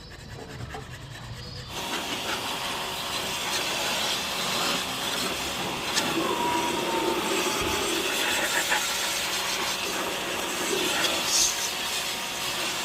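A pressure washer's water jet spraying steadily with a strong hiss. It starts suddenly about two seconds in and cuts off sharply near the end.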